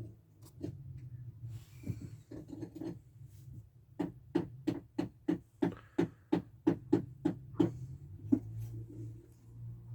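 Rhythmic knocking, sparse at first, then settling about four seconds in into a steady beat of roughly three knocks a second, over an on-and-off low hum.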